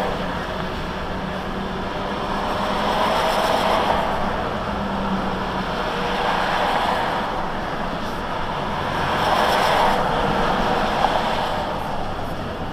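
Road noise inside a moving car on a highway, picked up by a dash cam: a steady rush of tyre and wind noise with a low engine hum underneath, swelling and easing every few seconds.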